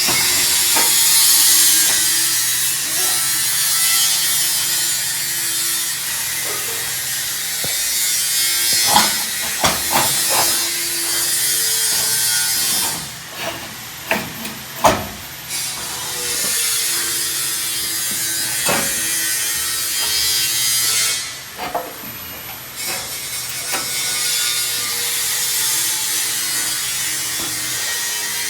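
Oscillating multi-tool cutting drywall so the metal door frame fits around it, running steadily in three stretches with brief pauses about halfway through and near the end. Scattered knocks of the metal frame and tool come between the cuts.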